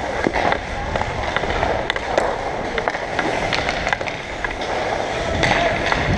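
Ice hockey skate blades scraping and carving the ice, with frequent sharp clicks of the stick blade tapping the puck and ice while stickhandling.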